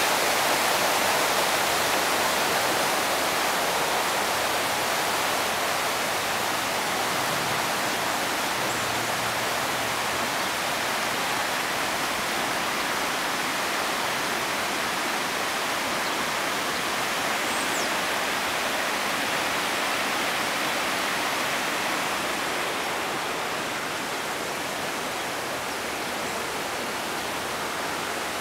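Floodwater rushing across a paved road in a steady hiss, fading a little near the end.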